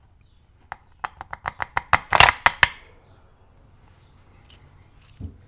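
A quick run of sharp clicks, about a dozen in two seconds and loudest near the middle, as the key and plug of an Abus Bravus 4000 lock are worked between the fingers. Two faint ticks follow near the end.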